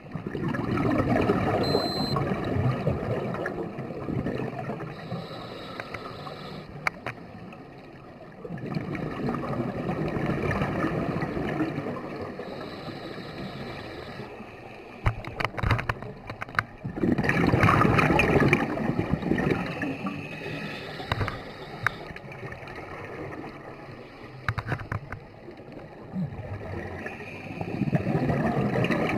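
Scuba divers' exhaled air bubbling out of their regulators underwater, a bubbling rush lasting a few seconds and coming back about every eight seconds, with quieter stretches between breaths.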